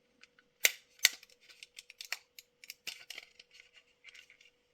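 Plastic glazing and door being worked out of a die-cast model bus body with a tack removing tool: irregular small clicks and scratchy scraping, with two sharp snaps about a second in.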